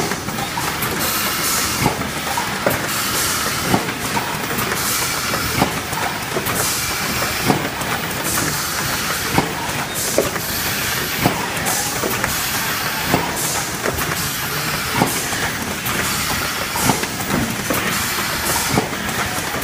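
Automatic cartoning machine for facial-mask pouches running, a steady mechanical clatter with a hiss, many regular clicks and a louder knock about every two seconds.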